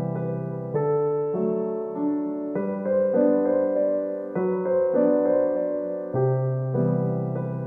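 Background music: a gentle solo piano piece, its notes and chords changing about once a second.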